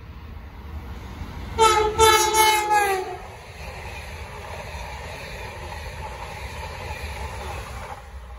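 High-speed electric train sounding its horn as it approaches: a short blast, then a longer one, falling slightly in pitch at the end. The steady rush of the train passing at speed follows.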